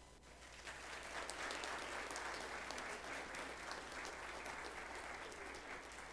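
Audience applauding, building up within the first second and slowly tapering off toward the end.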